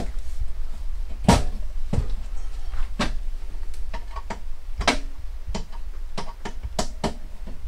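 Irregular clicks and knocks of an electrical panel's cover being handled and fitted into place by hand, the sharpest about a second in.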